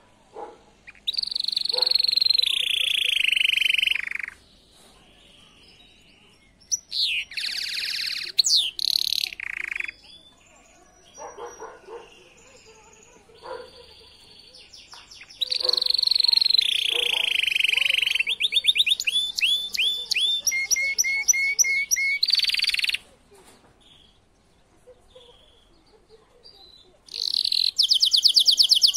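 Domestic canary singing: high, rolling phrases and fast trills of rapidly repeated notes, in several bursts with short pauses between. The longest phrase fills the middle of the stretch, and a loud, fast trill starts near the end.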